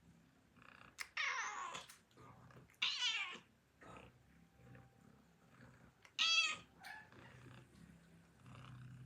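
Domestic cat meowing three times: a longer falling call about a second in, a wavering one about three seconds in, and a short, higher one about six seconds in.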